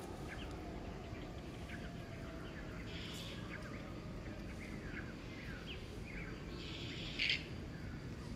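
Outdoor ambience of small birds chirping, many short falling chirps, over a steady low rumble, with a brief louder hiss about seven seconds in.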